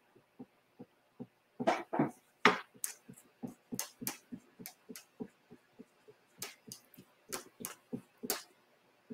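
Chalk Couture detail tool dabbing and scraping chalk paste through a silk-screen transfer onto a chalkboard. It makes a run of irregular soft taps and clicks, louder about two seconds in and again around seven to eight seconds.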